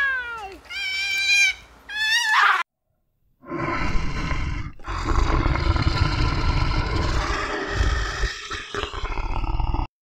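Three short, whiny calls from a coypu (nutria), each wavering and falling in pitch. After an abrupt cut comes a long, rough growl from a bear, lasting about six seconds with a short break near its start.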